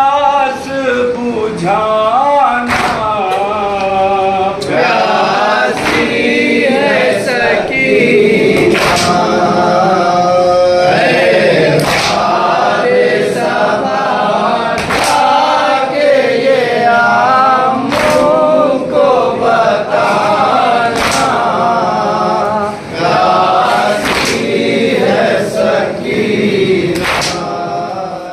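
Men's voices chanting a nouha, a Shia mourning lament in Urdu, in chorus, with sharp strikes of matam (hands beating on chests) keeping time. The loudest strikes fall about every three seconds.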